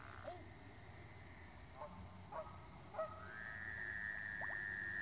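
Frogs calling: a few short chirps in the first three seconds, then one long, steady trill starting a little after three seconds in.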